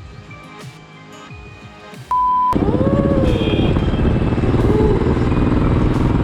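Soft background music, then a short steady beep about two seconds in. The beep gives way to a loud running motor engine whose pitch rises and falls.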